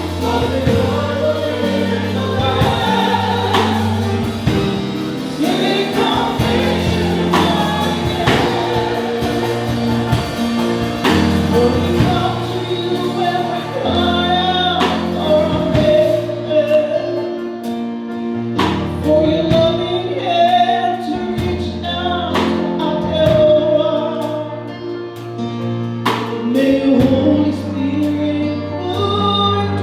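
Choir singing a gospel hymn with instrumental accompaniment, steady bass notes and a regular beat.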